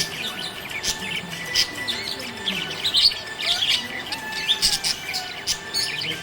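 Several small pet parrots chirping and chattering together in a continuous run of quick, high chirps with the odd squawk.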